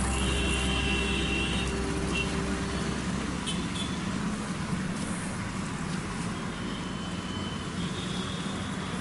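Steady street traffic noise from passing road vehicles, with a low rumble that fades away about three seconds in.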